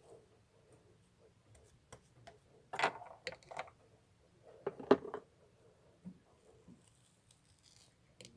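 A few scattered clicks and knocks, with louder clusters about three and five seconds in, like small objects being handled.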